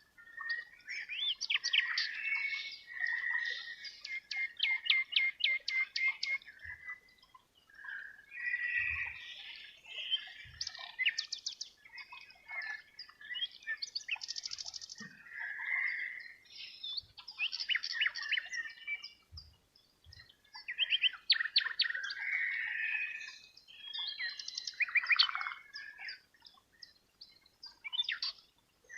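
Songbirds singing: overlapping chirps, rapid trills and quick whistled notes in phrases of a few seconds, with brief pauses between them.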